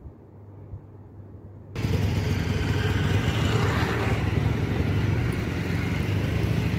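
A quiet low hum, then, about two seconds in, a sudden switch to loud, steady outdoor road-traffic noise with a low rumble.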